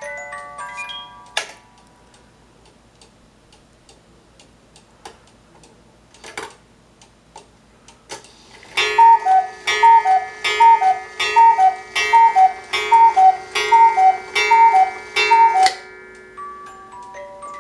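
Carved wooden cuckoo clock: its music box tune ends about a second in, leaving the clock ticking, then it sounds a series of about a dozen two-note cuckoo calls at an even pace, and the music box starts its tune again near the end.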